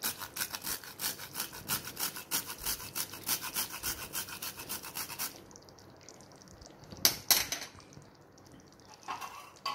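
Nutmeg rasped on a metal hand grater in quick, even strokes, about five a second, stopping about five seconds in. Two sharp clicks follow about two seconds later.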